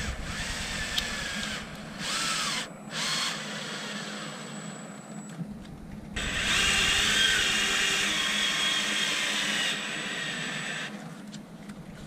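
Power drill running in several short bursts, then one longer, louder run of about four seconds, with a wavering motor whine, as a bracket is screwed down.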